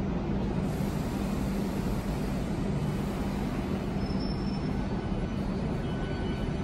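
Southeastern Class 395 high-speed electric multiple unit pulling slowly out, giving a steady low hum and rumble, with faint high whining tones joining near the end.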